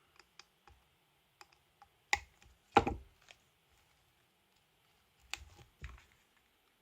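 Scattered light clicks and knocks from handling a Nintendo Switch during a repair. Small clicks come in the first second or so, two sharper knocks follow around two and three seconds in, and two more come near the end.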